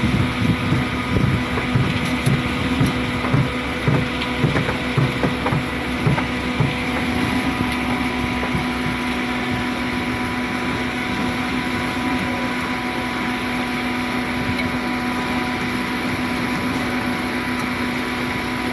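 Concrete mixer pump running steadily, with a low rhythmic pulsing of about two beats a second that fades out about seven seconds in, leaving an even running sound with a steady hum.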